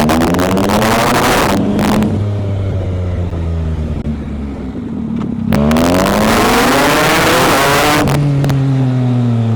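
Performance engine revving hard as the vehicle launches away, climbing in pitch twice with a drop between, the second pull the loudest with a rush of noise over it, then settling to a lower steady note.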